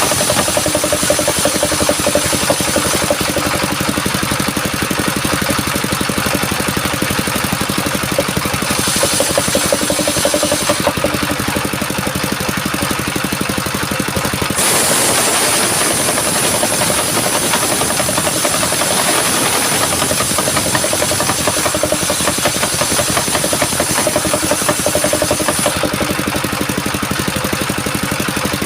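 Homemade circular-blade sawmill driven by a Dongfeng diesel engine, running steadily as the blade rips through coconut-palm wood with a loud high hiss. About halfway through, the high hiss grows stronger for roughly ten seconds, then eases near the end.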